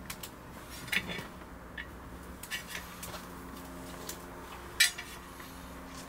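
Camp cookware and utensils clinking and knocking as they are handled: about eight scattered clinks, the loudest about five seconds in, over a faint steady hum.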